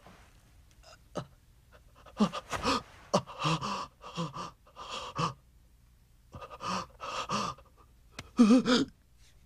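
A young man's voice, acted, gasping and panting in fright: a few short clicks at first, then a run of ragged voiced gasps from about two seconds in, the last one loudest.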